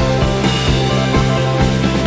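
Background music: an upbeat rock-style track with bass, sustained notes and a steady beat.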